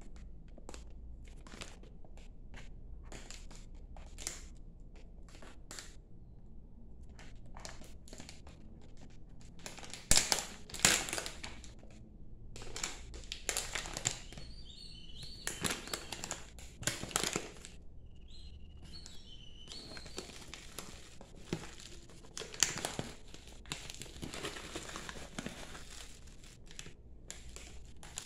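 Foil-lined tea pouch crinkling and rustling in the hands, with a metal spoon digging into the dry loose black tea leaves inside. The crinkles come in irregular bursts, loudest about ten seconds in.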